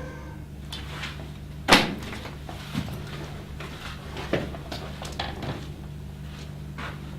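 A sharp bang, like a door or cupboard shutting, about two seconds in, followed by a scattered series of lighter knocks and clicks over a steady low hum.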